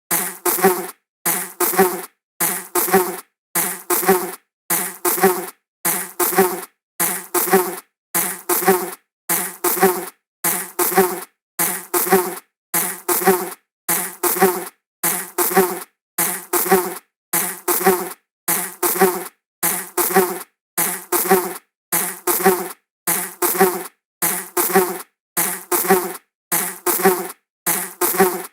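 Flying insect buzzing past: a short buzz with a low hum note, repeated over and over at an even pace, about once every three-quarters of a second, with brief silent gaps between.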